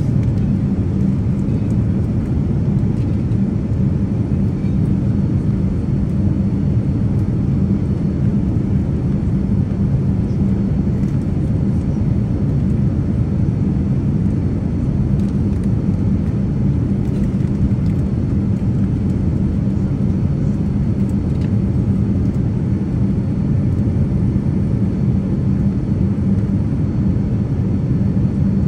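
Steady cabin noise aboard a Boeing 787-9 Dreamliner airliner: a low, even rumble with a faint steady hum, unchanging throughout.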